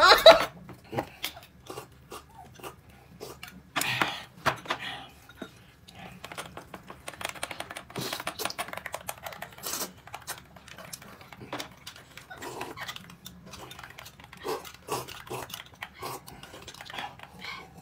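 Close-up eating sounds: irregular chewing and crunching of food, mixed with light clinks of dishes and utensils.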